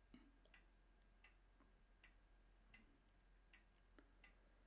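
Near silence with faint, regular ticking, about one tick every three-quarters of a second, over a low steady hum.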